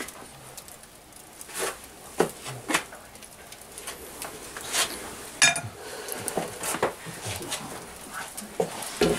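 Scattered sharp knocks and clatters of a wooden batter spreader and a large round metal socca pan being handled and pushed onto the oven floor, the loudest about halfway through.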